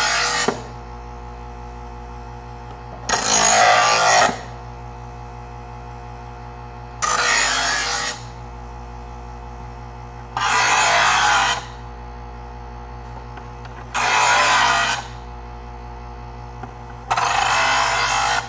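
Presto EverSharp electric knife sharpener's motor running steadily while a knife blade is drawn through its abrasive grinding wheels, heel to tip, giving a loud rasping grind about a second long five times, roughly every three and a half seconds.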